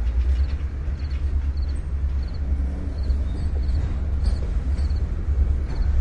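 Train running with a steady, heavy low rumble. A faint high tick repeats about every two-thirds of a second.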